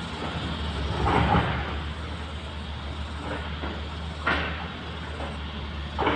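Heavy construction machinery's diesel engine running steadily, with three short louder noisy bursts, the biggest about a second in.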